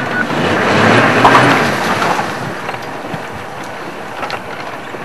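Safari game-drive vehicle moving off, its engine running under wind noise on the microphone. The noise swells to a peak about a second in, then settles to a steadier lower rumble.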